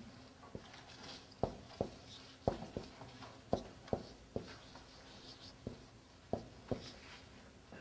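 Marker writing Arabic letters on a whiteboard: about a dozen irregular sharp taps as the tip meets the board, with faint scratchy strokes between them.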